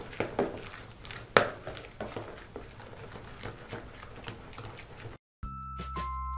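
Soft yeast dough being stirred in a plastic basin: irregular soft wet slaps and light taps, with one sharper knock about a second and a half in. The sound cuts off about five seconds in and music starts.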